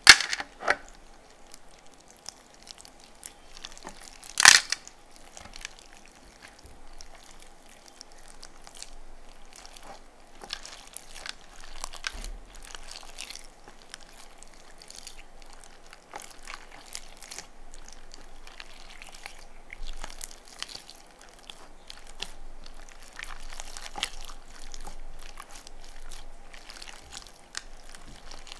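Hands squeezing and kneading yellow slime mixed with water beads: a steady run of wet squelches and crackling pops. One sharp, louder pop comes right at the start and another about four seconds in.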